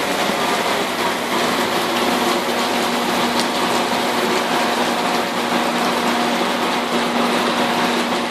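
Heavy rain pouring down in a steady, even hiss, with a faint steady hum underneath from a few seconds in.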